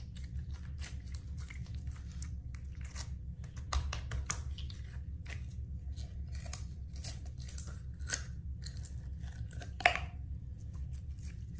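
Slime being squeezed and kneaded by hand, making irregular sticky clicks and pops, with a sharper pop about ten seconds in.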